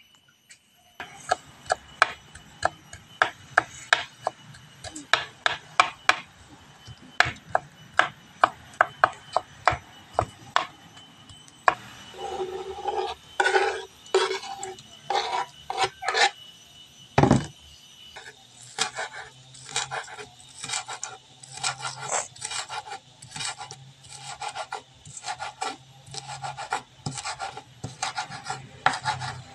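Kitchen knife chopping on a wooden cutting board: sharp knocks of the blade on the board, about two a second at first, then faster and more continuous, with one heavier knock a little past halfway. The cook is chopping tomatoes and then spring onions.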